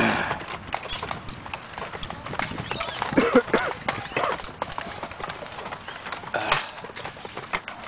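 Irregular clicks and knocks from a Nerf Longshot being jostled and carried, with a camera strapped to it by elastic bands. People's voices call out a few times in the middle.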